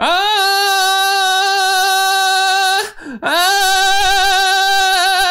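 A man singing two long held high notes on the same pitch, in mixed voice, with a short break between them. The tone wavers unsteadily, more on the second note: a deliberate demonstration of a shaky high note.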